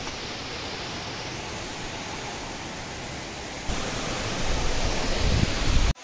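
Steady rushing outdoor noise. About two-thirds of the way in it jumps louder and a low rumble joins it, and it cuts off abruptly near the end.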